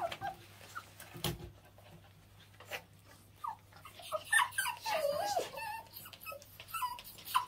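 A dog whimpering and whining in a run of short, high squeals that bend up and down, starting about halfway in, after a few soft knocks.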